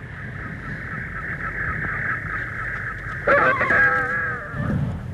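Animal calls, a few wavering cries about three seconds in, over a steady high-pitched hum.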